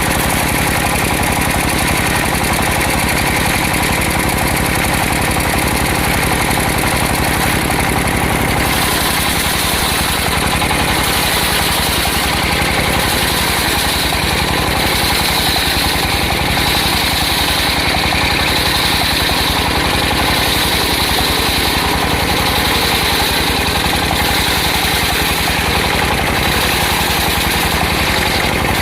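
Circular sawmill running steadily, engine and saw making one continuous loud drone with an even low throb. About nine seconds in the tone shifts and a higher whine comes in.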